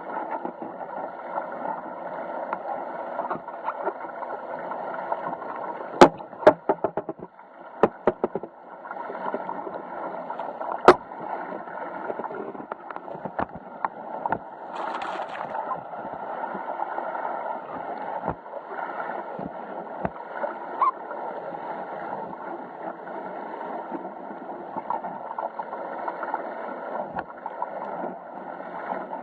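Water rushing and gurgling along a Musto Performance Skiff's hull under sail, with a cluster of sharp knocks about six to eight seconds in and another single knock about eleven seconds in.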